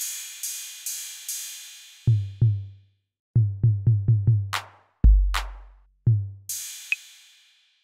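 GarageBand's Classic Drum Machine sounds played one hit at a time, not as a steady beat. Cymbals ring at the start, then come low drum hits, a quick run of six low hits about three and a half seconds in, and a deeper boom about five seconds in. Another cymbal rings near the end.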